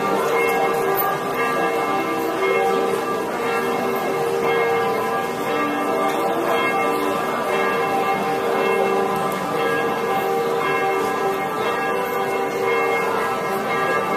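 Church bells ringing continuously, many bell tones at different pitches overlapping and sustaining without a break.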